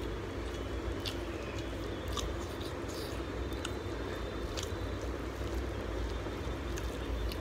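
Close-up chewing and wet squishing of rice and prawn curry eaten by hand, with a few sharp clicks scattered through. A steady low rumble runs underneath.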